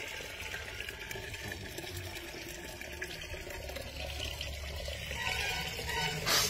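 Cloudy rice-beer liquid pouring steadily from a plastic bucket into a clay pot, splashing into the liquid already inside. There is a brief louder burst near the end.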